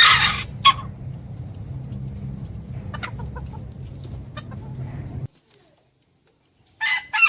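A flock of chickens calling: a loud squawk right at the start and another just after, then scattered faint clucks over a steady low hum. The sound cuts off abruptly about five seconds in, and after a short silence a loud, drawn-out call starts near the end.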